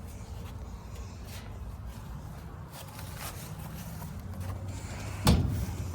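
Steady low outdoor background rumble, with one sharp knock about five seconds in.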